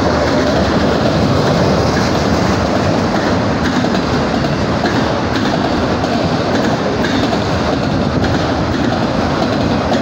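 Auto-rack freight cars rolling past close by: a steady, loud noise of steel wheels running on the rails.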